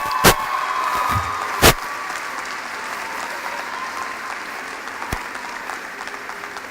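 A large crowd applauding, fading gradually, with two loud sharp bangs in the first two seconds.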